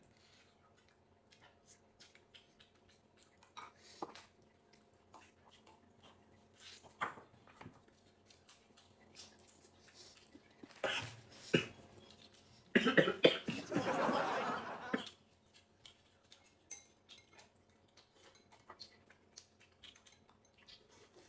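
Close-up eating sounds: chewing and gnawing on bone-in meat, with light clicks of chopsticks against bowls. About halfway through, a loud rough mouth noise lasts roughly two seconds.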